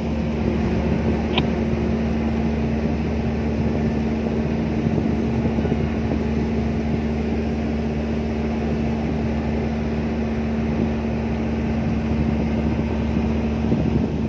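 Steady drone of a ship's engine running, with a constant hum and one brief click about a second and a half in.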